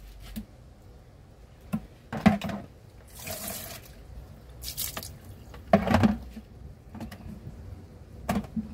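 Water splashing in a plastic bowl as cut pieces of fish are dropped in, with a few sharp knocks of the bowl and knife on a wooden cutting board.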